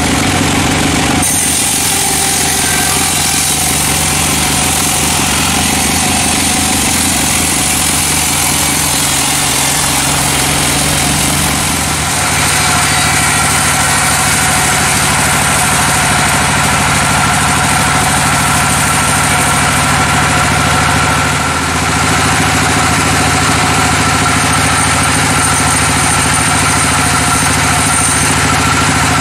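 A sawmill band saw running steadily and loudly, its blade cutting lengthwise through a teak log to take off slabs. A constant machine hum and drone sit under a high, hissy cutting noise.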